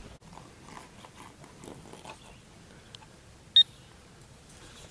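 Handheld pinpointer metal detector passed over a walnut log, with faint rustling, then one short, high beep about three and a half seconds in.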